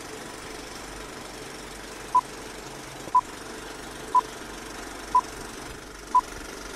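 Countdown timer beeps: short, high, single-pitched beeps once a second, five in all, starting about two seconds in, over a steady hiss.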